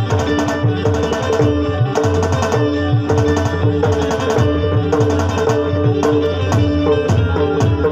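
Roland Octapad SPD-20 electronic percussion pad playing tabla-style drum sounds in a quick, busy rhythm over steady held notes.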